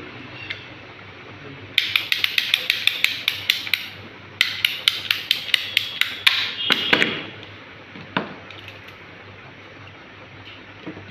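Red ratcheting plastic-pipe cutter clicking rapidly, about six clicks a second, in two runs as its handle is worked to cut through a plastic pipe, followed by a single knock.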